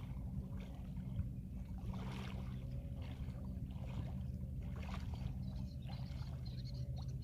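A steady, low engine hum holding one constant pitch, with faint water and wind noise behind it.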